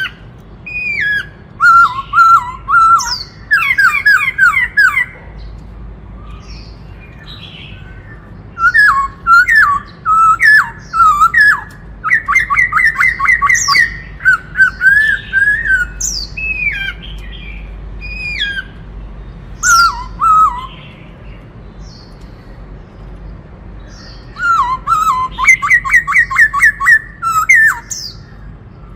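White-cheeked laughingthrush singing loud, varied phrases: fast runs of repeated whistled notes and quick up-and-down slurs, in bursts of a few seconds with short pauses between.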